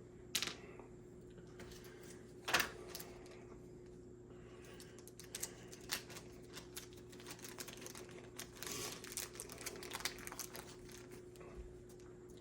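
Small clicks and taps of tiny traction magnets and the plastic HO slot car chassis being handled: two sharper clicks early on, then a run of light, irregular clicks through the middle.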